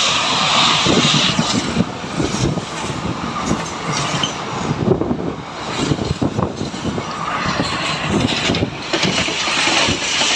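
An Indian Railways express passenger train passing close alongside on the next track: a loud, continuous rush and rumble of its coaches with irregular wheel clatter, mixed with the run of the moving MEMU train and air rushing in at its open window.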